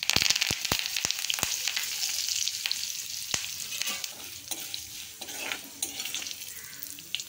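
Fresh curry leaves hitting hot oil in a kadai during tempering, sizzling and crackling loudly at once. The spitting is sharpest in the first second or so and eases gradually. Near the end a spatula stirs the leaves through the oil.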